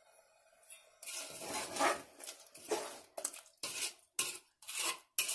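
Metal ladle stirring a thin vegetable curry in an aluminium pressure cooker, scraping and clinking against the pot. It starts about a second in with a run of scraping strokes, then goes on as separate strokes about two a second.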